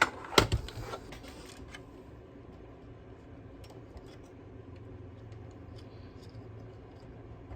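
Small metal parts and a screwdriver handled on a PS5 Slim's casing during reassembly: two sharp clacks near the start and a short rattle, then faint scattered ticks over a low steady hum.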